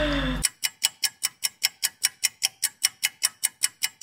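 Clock-ticking sound effect: fast, even ticks, about six a second. It starts about half a second in, where the room sound cuts out abruptly at an edit.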